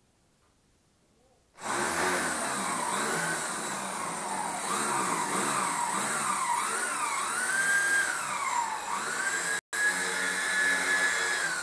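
Corded electric drill running and drilling into the wall, its motor pitch rising and falling repeatedly as it is pressed in and eased off. It starts abruptly and breaks off for an instant near the end.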